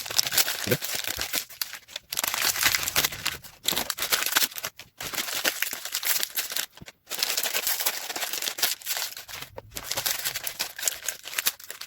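Ice cream wrappers crinkling and crackling as they are torn open, in dense stretches broken by short pauses.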